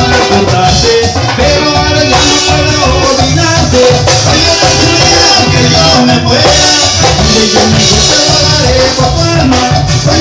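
Latin dance band playing live and loud through a PA during an instrumental stretch without singing: a pulsing bass, a melodic lead line and a steady high shaker-like rhythm.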